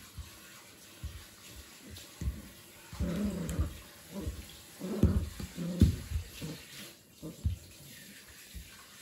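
Kooikerhondje puppy tugging and dragging a plastic doll across a carpeted floor: irregular scuffling and dull knocks, busiest around the middle.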